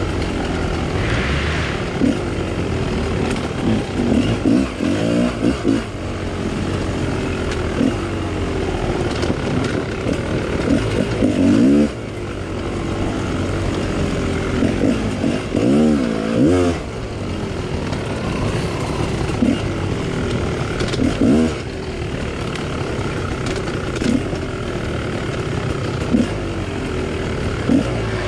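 2018 GasGas 250XC two-stroke dirt bike engine being ridden hard. Its pitch rises and falls again and again with throttle blips and revs, with the sharpest revs a few seconds in, about eleven seconds in and about sixteen seconds in.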